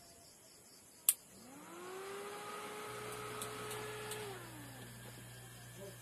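A sharp switch click, then a small electric motor whirring up in pitch, holding steady for about two seconds and winding back down. Under it, from about three seconds in, a low steady mains hum from the homemade sine-wave inverter and its toroidal transformer.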